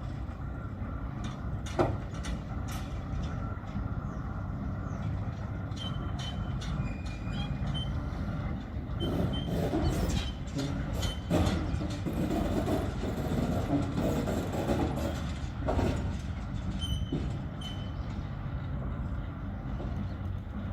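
Railway turntable in motion: a steady low rumble with repeated clanks and knocks of metal, a few brief high squeaks, and a louder stretch in the middle.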